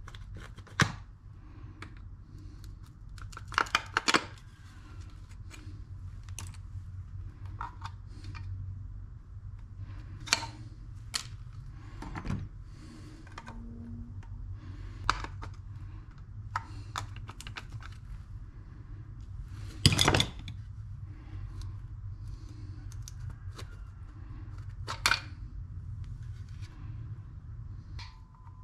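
Hand tools clicking and clinking against a metal throttle body as it is taken apart: scattered sharp metallic clicks, a quick clatter about four seconds in and the loudest knock about twenty seconds in, over a steady low hum.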